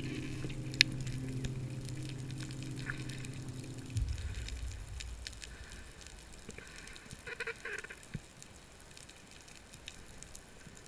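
Water noise with faint crackles and clicks. A steady hum runs under it and cuts off about four seconds in, leaving a quieter low rumble.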